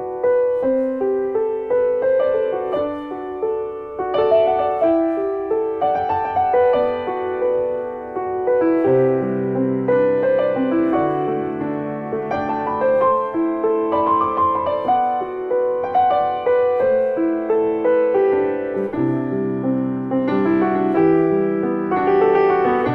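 Piano music: a gentle melody of sustained, decaying notes, with lower bass notes joining about nine seconds in.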